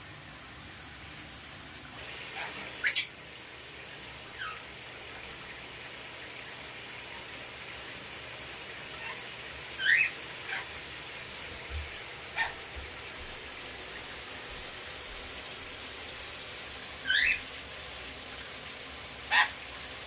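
Pet parrots giving short, sharp calls every few seconds, several rising in pitch, the loudest about three seconds in, over the steady hiss of a running shower.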